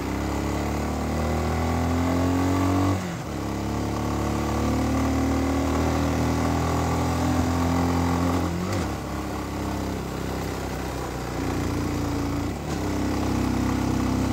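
Motorcycle engine pulling uphill under throttle, its pitch rising steadily. It breaks off and drops at a gear change about three seconds in, climbs again, and shifts again about nine seconds in and once more near the end.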